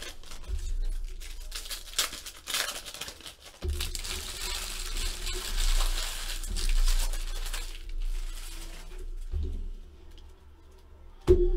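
Trading-card pack wrappers being handled: scattered crinkles and clicks, then a longer stretch of steady crinkling and tearing in the middle.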